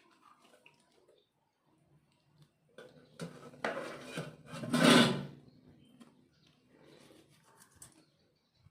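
Kitchen dishes and utensils clattering and scraping in a short burst of handling, loudest about five seconds in, after a quiet start.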